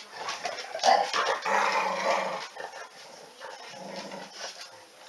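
Two dogs growling at each other in rough play. The growls are loudest for about a second and a half, starting about a second in, and come back in quieter bursts later.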